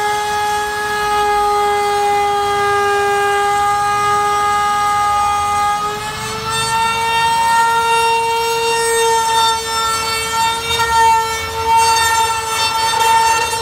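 Handheld trimmer router cutting along a straightedge into an aluminium panel, its motor giving a loud, steady high whine whose pitch steps up a little about six seconds in.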